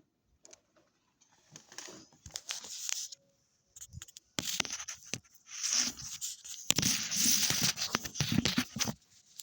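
Rustling and scraping noises in several stretches, with a few sharp ticks mixed in, after a quiet first second.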